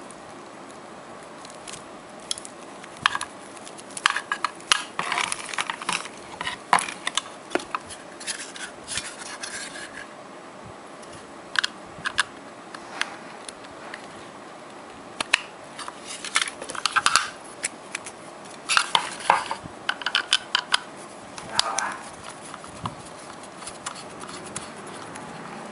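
Hands handling a TP-Link USB Wi-Fi adapter and its USB cable, plugging the cable into the adapter's small plastic housing: scattered small plastic clicks, taps and rustles that come in clusters, over a steady faint hiss.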